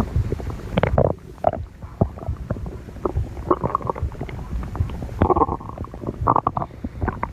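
A person's stomach growling: irregular gurgles and short pops over a low rumble, with several louder gurgling bursts spaced through it.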